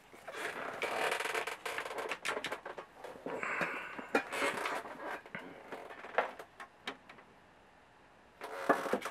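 Handling noise from fingers working small wires and meter test leads: irregular rustling with scattered small clicks and taps, and a louder rustle near the end.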